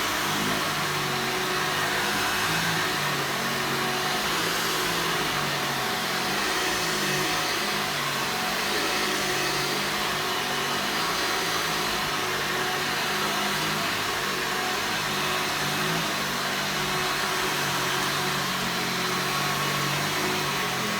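Hoover Soft and Light soft-bag upright vacuum cleaner from about 2000, its motor running steadily with a fairly loud, even whir.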